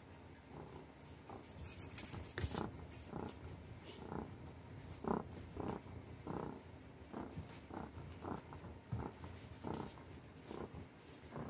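Domestic cat purring close up, in short pulses about twice a second, with a brief louder rustle about two seconds in.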